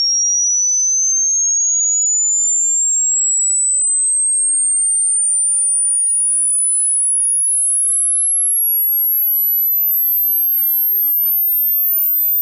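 A single pure sine tone sweeping steadily upward in pitch at a constant level, already very high and shrill and climbing higher. It is part of a linear 20 Hz to 20 kHz hearing-test sweep.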